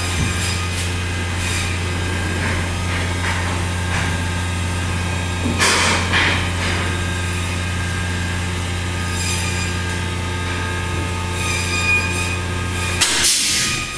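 Steady low machine hum that cuts off about thirteen seconds in, with a short noisy burst about six seconds in and another as the hum stops.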